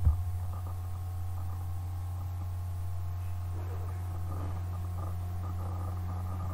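Steady low hum with a faint, higher steady whine above it. Nothing else happens.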